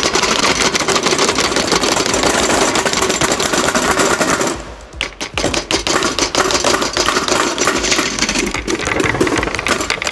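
Several small hammers chipping rapidly at blocks of ice, a dense clatter of overlapping knocks, with a brief lull about five seconds in.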